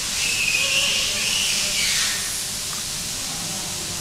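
Hot-air heat gun blowing with a steady hiss, louder and with a faint whistle for about the first two seconds, as hot air is used to soften a PVC repair patch.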